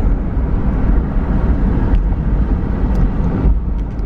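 Steady road rumble and noise of a moving car, heard from inside the cabin.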